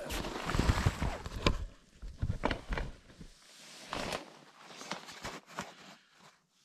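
Rustling and irregular knocks and bumps, heaviest in the first three seconds, as boots are pulled off inside a small tent.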